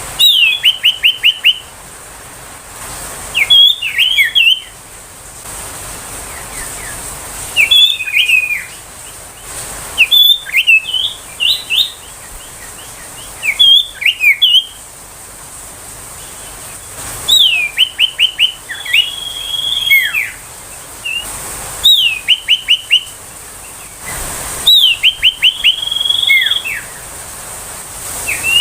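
Common iora singing: about eight short phrases, each a quick run of falling whistled notes, some ending in a held whistle. They repeat every three to four seconds.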